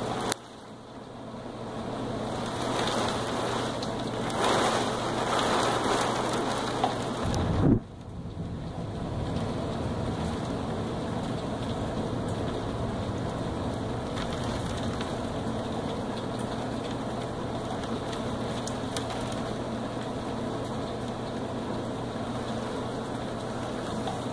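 Heavy thunderstorm rain falling steadily. It swells louder a few seconds in, and a short low rumble of thunder peaks about a third of the way through.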